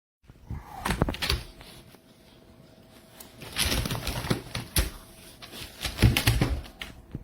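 A dog playing with a rope tug toy, with irregular bursts of knocking, rustling and clatter, three main flurries.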